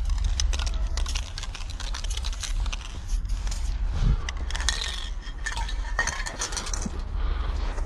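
Metal aerosol spray-paint cans clinking and rattling in a string of short, sharp clicks, over a constant low rumble of wind on the microphone.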